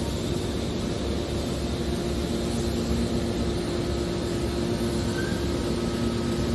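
Baling press for aluminium cans running: a steady mechanical drone with a low, even hum.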